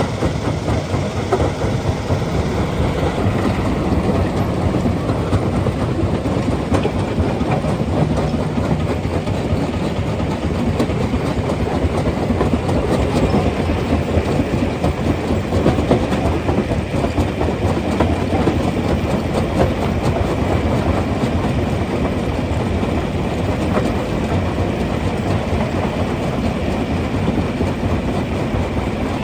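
Rock crusher running, with a loud continuous clatter and rumble of stone being broken.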